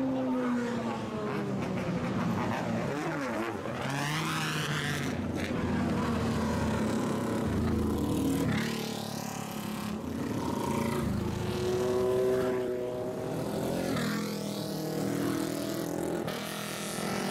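Engines of modified vehicles driving out one after another past the listener, revving up and down as each goes by: first a Lamborghini Huracán's V10 exhaust, then an old motorcycle's engine blipping and revving.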